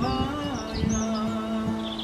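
Background music with sustained, held instrumental notes, one low note held from about half a second in, and short high chirps like birdsong over it.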